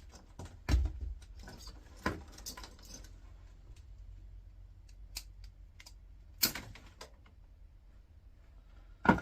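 Scattered clicks and taps of a screwdriver working small flathead screws out of an old electrical unit. Several sharper clicks come through, the loudest near the end.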